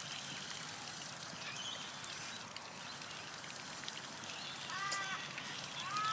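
Birds calling over a steady hiss. Faint high chirps sound in the first couple of seconds, then two clear arching calls come near the end, the second one longer.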